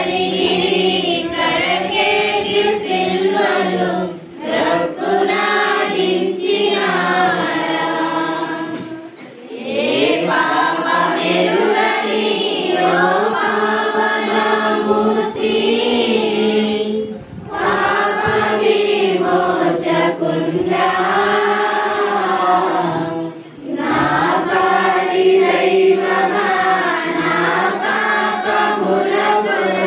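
A group of voices singing a Christian hymn in long phrases, with brief pauses between the phrases.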